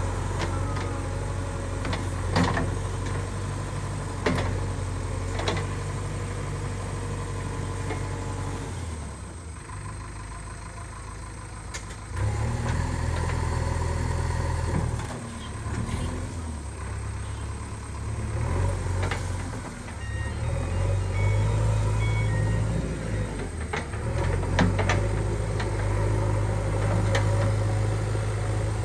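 JCB 3DX backhoe loader's diesel engine running, easing off for a few seconds about a third of the way in and picking up again, with several sharp knocks scattered through.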